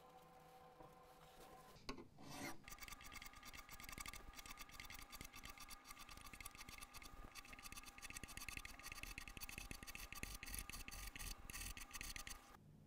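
Metal file rasping along the overhanging ends of new guitar fret wire, dressing them flush with the fingerboard edge in a rapid run of back-and-forth strokes. The filing starts about two seconds in and stops just before the end.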